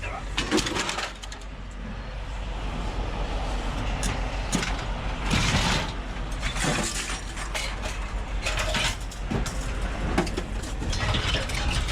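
Scrap metal clanking and scraping in irregular knocks as tangled pieces are pulled free from a pile, over a steady low engine rumble.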